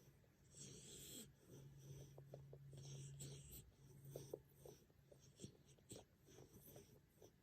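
A sleeping puppy snoring faintly, with slow, soft breaths a few seconds apart.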